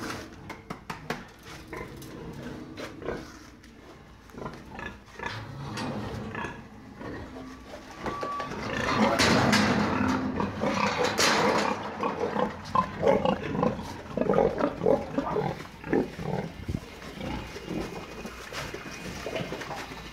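Pigs (sows) grunting and squealing, loudest and densest from about nine to twelve seconds in, with scattered short knocks and clatter.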